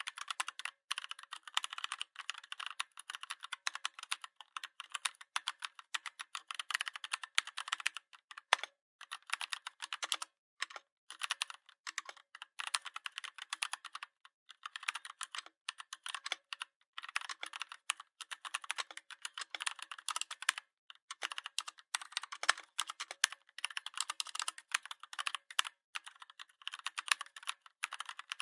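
Rapid keyboard-typing clicks in runs with short pauses between them.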